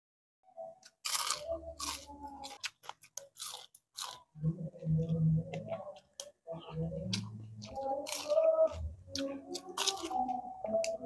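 Close-miked eating: a string of sharp crunches from biting and breaking crispy fried fish, with wet chewing in between.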